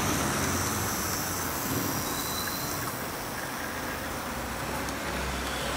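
H0 model tram running on the layout's track: steady rolling noise with a faint high whine.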